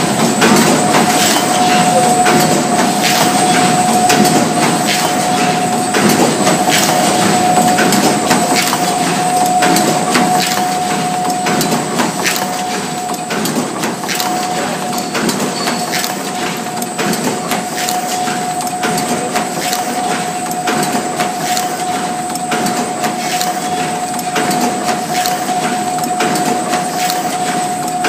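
Paper bowl forming machine running: a rapid, even mechanical clatter of its feed, press and indexing mould turret, over a constant steady whine.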